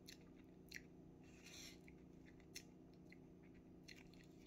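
Near silence with faint mouth sounds of someone tasting MRE cream cheese spread: a few soft lip and tongue clicks and a brief soft rustle about one and a half seconds in, over a steady faint hum.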